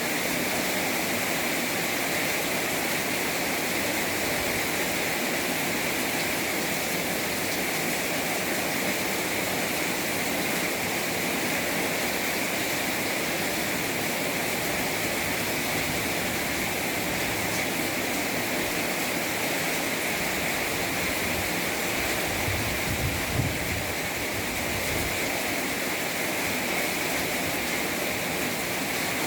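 Heavy rain pouring down in a steady, unbroken hiss, with a short low rumble about three-quarters of the way through.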